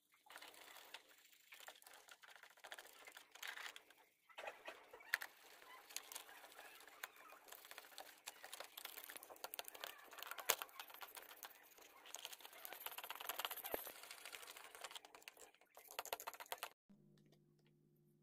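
Toothbrush scrubbing brass binocular parts in a tub of cleaning liquid: a steady scratchy brushing with scattered sharp clicks, stopping abruptly near the end.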